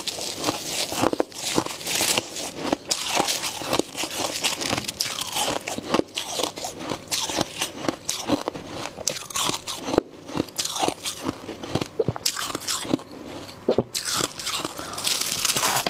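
Powdery freezer frost crunching: gloved hands scooping and packing the frost into a lump, then crisp bites and chewing of the packed frost near the end, a dense run of sharp crunches.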